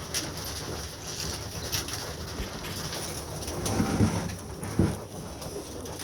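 Domestic pigeons cooing in the loft, with two louder low coos past the middle, among scattered light ticks.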